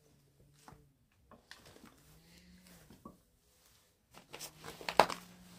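Scattered light clicks and scuffs, then a few sharper knocks, the loudest about five seconds in, over a faint steady hum.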